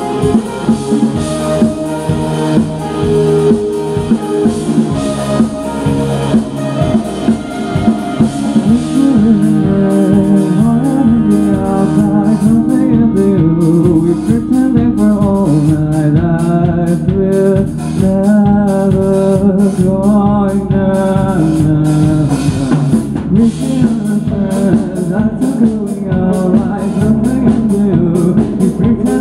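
Live rock band playing loudly on electric guitars and a drum kit, with a singing voice coming in over the band partway through.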